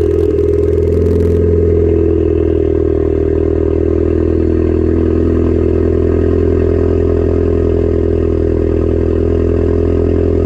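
Ford ST's turbocharged four-cylinder engine idling steadily at a high cold-start idle, just after starting from cold.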